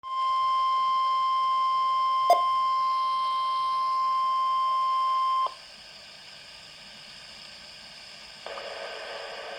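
Weatheradio Canada warning alarm tone: a single steady high-pitched tone from a weather radio broadcast, lasting about five seconds and cutting off sharply, with one brief click about two seconds in. After the tone there is only faint radio hiss, which grows louder near the end.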